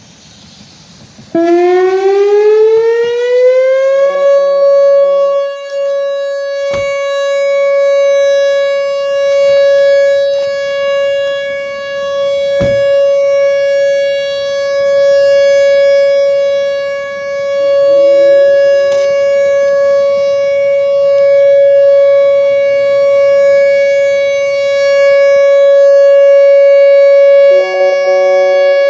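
Whelen Vortex electronic outdoor warning siren sounding its full-alert steady tone, the signal used for a storm warning, here on a monthly test. It starts about a second in, rises in pitch over a few seconds to one steady high tone, and then holds it, growing louder and softer every few seconds.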